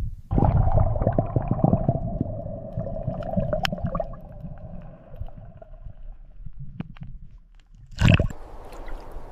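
Gurgling, squishy water in an ice-fishing hole as the lure and line go down: a steady hum with many small clicks over a low rumble that fades slowly, then one short loud knock about eight seconds in.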